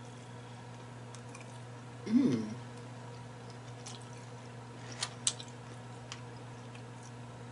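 A person eating: a short hummed "mmm" about two seconds in, its pitch rising then falling, and two sharp, wet smacks of the lips and mouth a few seconds later. A steady low hum runs underneath.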